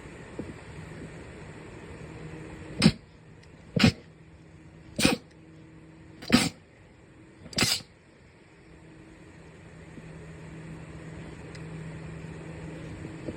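Five sneezes in quick succession, a little over a second apart, the last slightly drawn out, over a steady low hum.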